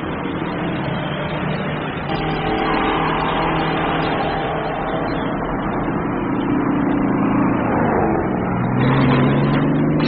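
Diesel semi-truck engines running as the trucks drive around, with one engine's pitch rising near the end as it accelerates.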